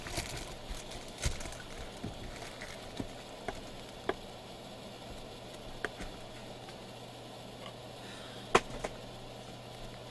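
Hands handling trading-card boxes and packs: rustling with scattered light taps and clicks, and one sharp click about eight and a half seconds in, over a steady low hum.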